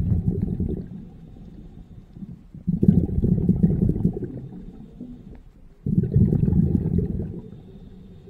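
Scuba diver breathing out through the regulator underwater, the exhaled bubbles bubbling out in bursts of about two seconds each. Each breath starts suddenly, and the breaths come about every three seconds: one fading just after the start, then two more.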